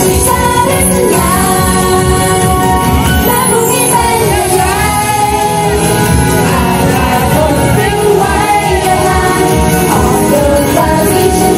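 Thai idol girl group singing a pop song live, female voices over backing music with a steady beat.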